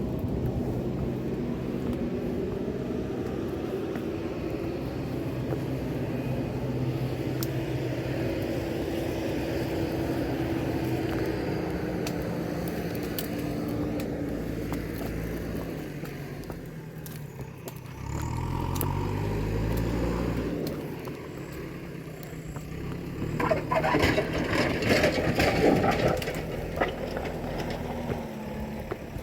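Motor vehicle engines running steadily, then a lower rumble that rises and falls as a vehicle revs or passes a little past halfway. Near the end comes a few seconds of loud rattling and scraping.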